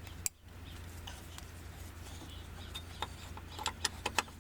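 Scattered sharp metal clicks and clinks of hand tools, a socket and breaker bar being handled, over a low steady hum.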